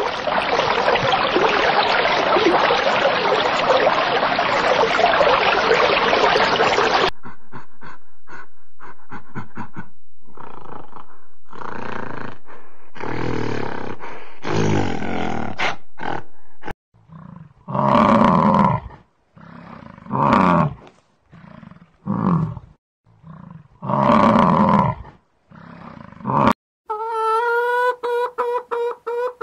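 A dense hissing noise for the first seven seconds, then a gorilla giving a series of loud calls, each about a second long. Near the end, hens clucking in quick pulses.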